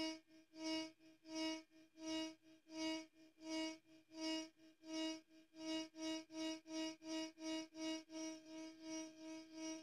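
Three sine tones at 317, 318 and 319 Hz from a phone's multi-oscillator app, played together through a speaker and beating against each other: one steady hum that swells and fades about one and a half times a second, the pulses coming about twice as fast from about halfway.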